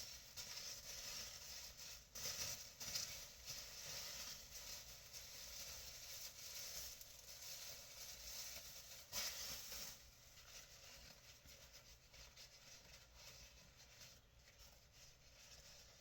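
Faint, irregular rustling of packaging being opened and unwrapped by hand, with a couple of louder spells, dying down after about ten seconds.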